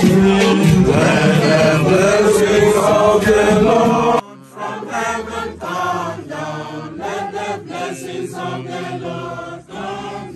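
Several voices chanting together, cut off abruptly about four seconds in, followed by a single voice chanting in short repeated phrases.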